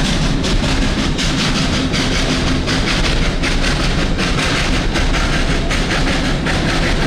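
Train rolling along the track: a steady rumble with a rapid, uneven clatter of wheels on rail.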